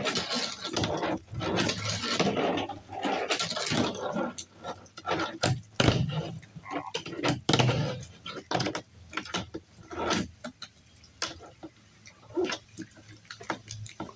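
Tech Deck fingerboard tricks on a tabletop: irregular sharp clicks and taps as the board's tail pops and its wheels land, mostly from a few seconds in, over the steady hiss of rain.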